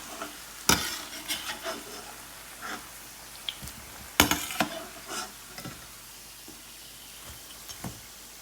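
Slices of elephant ear leaf patra frying in oil with a steady sizzle. A utensil knocks and clinks against the pan several times, loudest about four seconds in.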